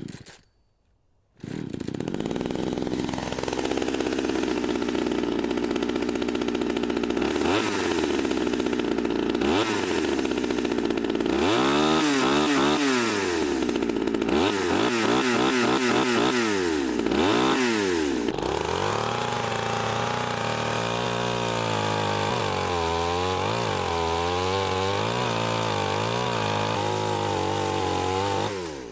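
Chainsaw engine starting about a second and a half in and running, revved up and back down several times, then running at a lower, wavering speed until it cuts off near the end.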